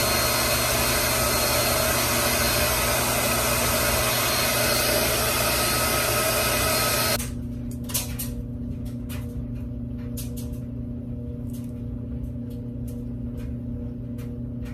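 Hand-held hair dryer blowing steadily for about seven seconds, then switching off suddenly. A low steady hum from a running washer and dryer continues underneath, with a few light clicks and taps after the dryer stops.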